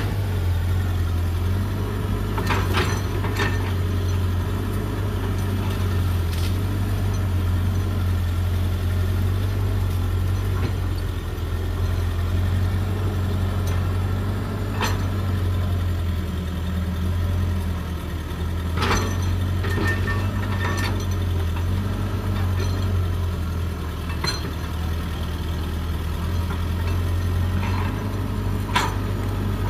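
Hydraulic excavator's diesel engine running steadily with a low hum, with a few sharp knocks scattered through it.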